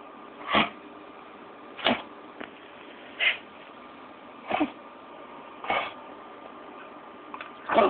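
Jack Russell Terrier coughing with kennel cough: six short coughs, about one every second and a quarter, the last preceded by a smaller one.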